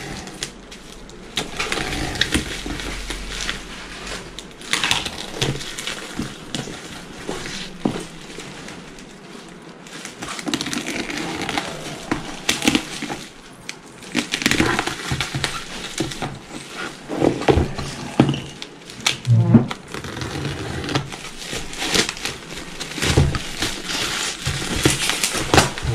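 Plastic packing tape being slit and torn off a cardboard box, then bubble wrap pulled away from it: irregular crinkling, tearing and scraping of plastic on cardboard.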